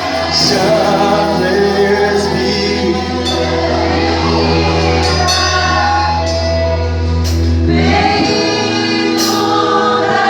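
Gospel worship song: a group of voices sings a slow, sustained line over keyboard and bass, with the chord changing about eight seconds in.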